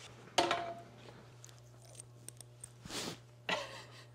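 Handling noise from the mini split's metal wall-mounting bracket. A knock with a short ring comes about half a second in, then a few small clicks, then two more knocks near the end.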